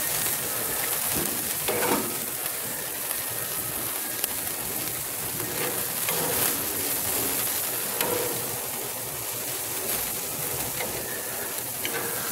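Ribeye steaks sizzling as they sear over the direct flame of a gas grill: a steady hiss, with a few light clicks of the metal tongs against the grate as the steaks are moved.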